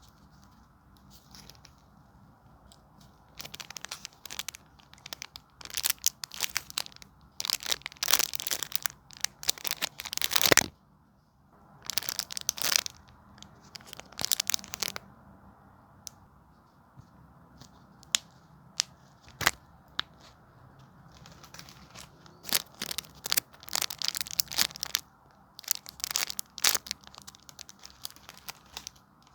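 Homemade squishies being squeezed and handled, crinkling and crackling in irregular bursts of a second or two with short pauses between them, and a quieter stretch about two-thirds of the way through.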